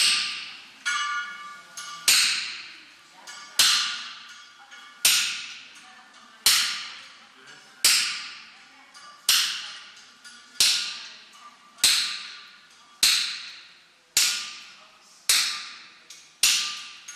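Blacksmith's hammer striking iron on an anvil in a slow, even rhythm, about one blow every second and a half. Each blow rings and dies away, with a few lighter taps between the first strokes.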